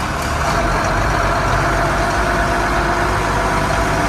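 Yard jockey terminal tractor's diesel engine running steadily in reverse while backing under a trailer, with a steady whine above the engine rumble.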